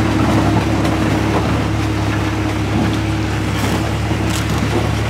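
The diesel engines of two large forklifts running steadily as they hold a lathe of about 45,000 pounds between them: a constant low engine drone with a steady hum.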